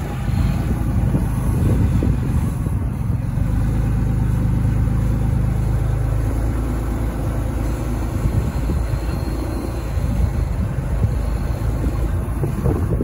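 An off-road vehicle's engine running with a steady low rumble.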